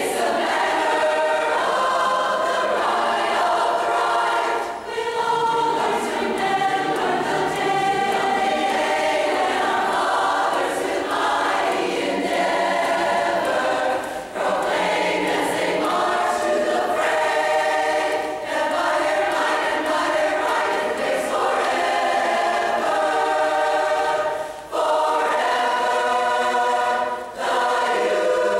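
Women's barbershop chorus singing a cappella in close harmony, sustained chords in phrases with short breaks between them.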